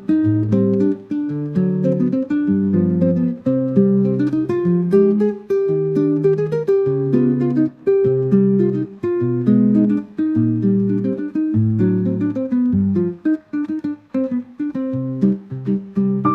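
Background music: acoustic guitar playing plucked and strummed notes at a steady pace.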